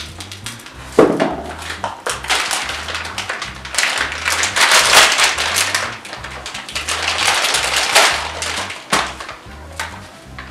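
Plastic packaging bag crinkling and rustling as a 3D-printer filament spool is pulled out of it, with a few knocks from handling the spool. Background music with a steady bass beat plays underneath.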